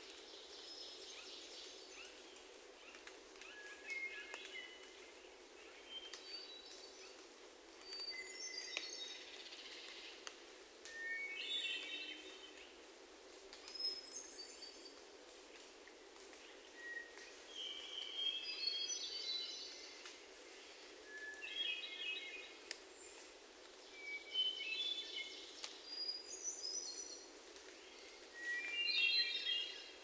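Two hermit thrushes singing, trading flute-like phrases about every two to three seconds. Each phrase opens on a single held note and breaks into a quick run of higher notes, at shifting pitches from phrase to phrase.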